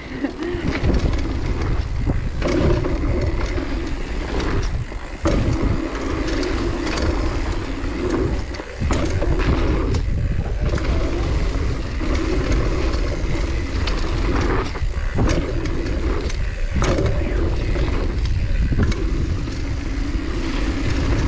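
Mountain bike ridden fast down a dirt trail, heard from a camera on the rider: steady wind and tyre noise, a hum that cuts in and out every few seconds, and occasional sharp knocks from bumps in the trail.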